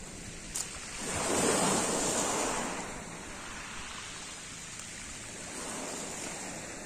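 Small sea waves breaking and washing on a pebble beach, one wave swelling about a second in and fading away by about three seconds.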